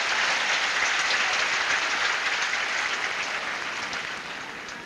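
Tennis crowd applauding, dying away near the end.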